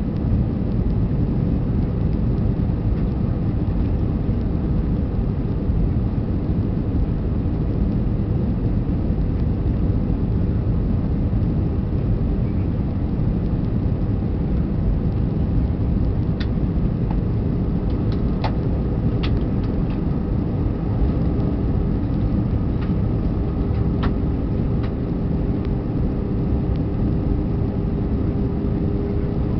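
Steady cabin noise inside an Airbus A320 as it descends toward landing: a constant low rumble of the engines and rushing air. A few faint clicks come in the middle, and a faint steady hum joins about two-thirds of the way through.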